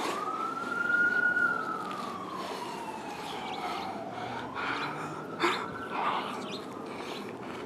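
A siren-like wail: one smooth tone that rises in the first second, then glides slowly down and partly back up over several seconds. A few short knocks sound near the end.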